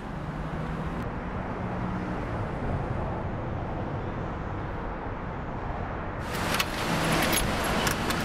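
Street traffic ambience: a steady wash of passing vehicles with a low hum. About six seconds in, a louder run of sharp clicks and rattles begins.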